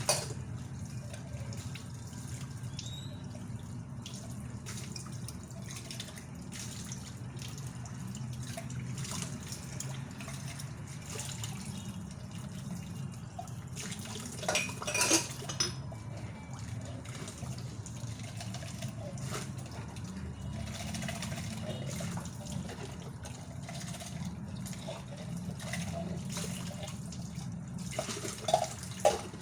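Dishes being washed at a kitchen sink: water running and dripping, with dishes knocking now and then and louder clatters about halfway through and near the end. A steady low hum runs underneath.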